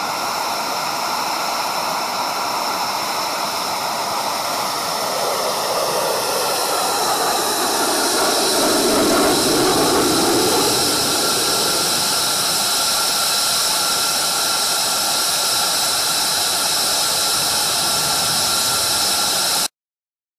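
Lockheed Martin F-22 Raptor's twin F119 afterburning turbofans during a low display pass: a steady jet rush with high whining tones. It swells a little past the middle and cuts off suddenly near the end.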